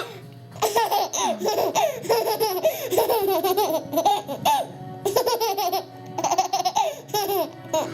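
A baby laughing in several bouts of rapid, high-pitched peals, with short breaks between them.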